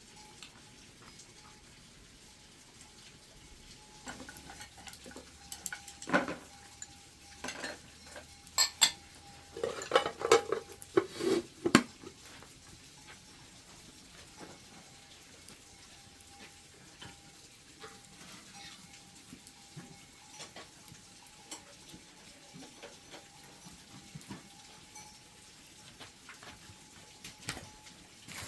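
Dishes and utensils clinking and knocking: a busy run of clatter for several seconds, then occasional lighter taps. A faint steady high tone runs underneath.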